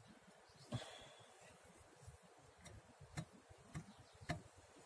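A few faint, irregular clicks from a car's front strut as it is rocked by hand: about two millimetres of play knocking, the source of a front-end knock.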